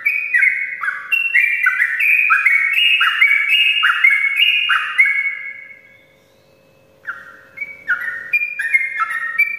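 Yellow-vented bulbul singing a long, rapid run of whistled notes, each slurring downward, about three or four a second at shifting pitches. It breaks off a little past halfway for over a second, then starts again.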